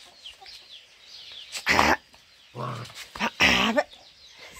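A dog gives three short barks, one lower and growlier than the others, over faint bird chirping.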